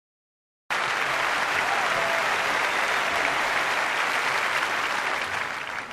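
Applause, starting abruptly less than a second in, holding steady and easing slightly just before it cuts off.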